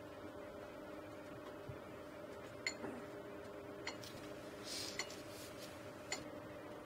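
Steady low room hum with four light clicks and clinks spread through it and a short soft brushing hiss around the middle, from a paintbrush and painting tools being worked over paper on a desk.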